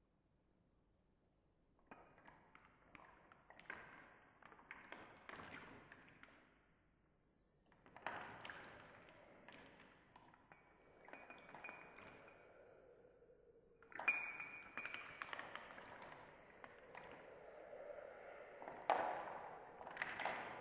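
Soft metallic pings and chime-like taps, with short ringing tones. They come in three clusters after about two seconds of near silence.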